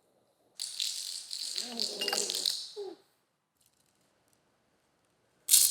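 Rattling, like small hard pieces shaken in a container, for about two seconds, played as a food sound effect. It stops, and a sudden loud noise comes in just before the end.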